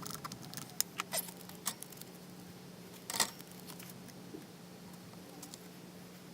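Scattered light clicks and taps of small objects being handled, the loudest about three seconds in, over a steady low hum.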